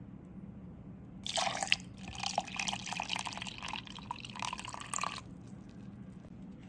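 Peach oolong tea poured in a thin stream into milk and yogurt in a plastic blender cup, splashing for about four seconds, starting about a second in and stopping suddenly.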